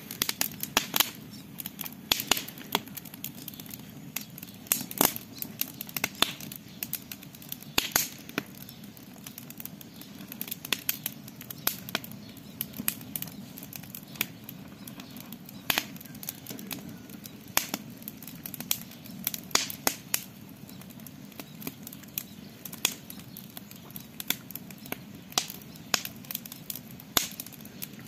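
Campfire crackling: irregular sharp pops and snaps, some much louder than others, over a steady low rush.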